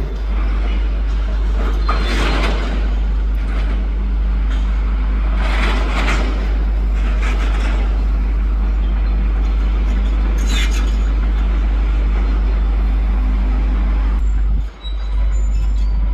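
Demolition excavator's diesel engine running with a steady low rumble, with brief louder noises about two, six and ten seconds in.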